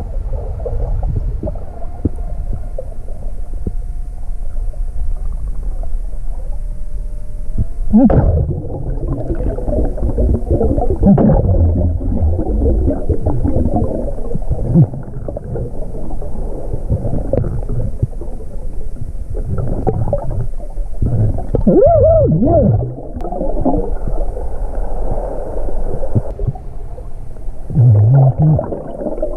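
Underwater sound of a diver's breathing and exhaled air bubbles, with water gurgling around the microphone. A few thin steady tones sound in the first few seconds, then from about eight seconds in there is loud, irregular bubbling.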